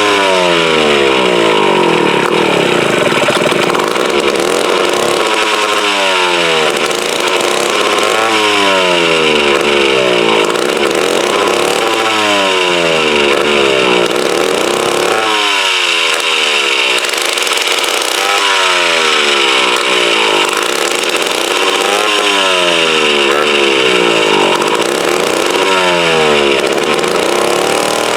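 Mid-1950s Strunk Speed Demon two-stroke chainsaw engine running, its pitch jumping up and then sagging back down every two to three seconds. The owner takes this uneven running as a sign that the carburettor needs a rebuild.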